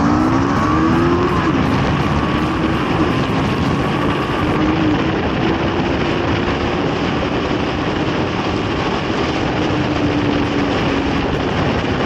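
Kawasaki GPZ 500S's 498 cc parallel-twin engine pulling hard in an acceleration run towards 140 km/h. The note rises, drops at a gear change about a second and a half in, climbs again, then settles into a steadier note. A heavy rush of wind runs under it.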